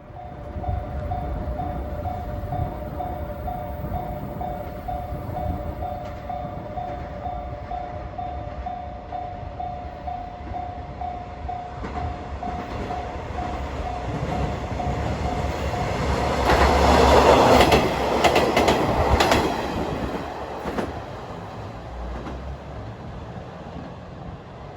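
Level-crossing warning bell ringing in a steady repeating two-tone pattern, then a two-car JR KiHa 120 diesel railcar passes over the crossing about two-thirds of the way in, its wheels clacking over the rail joints, and fades away.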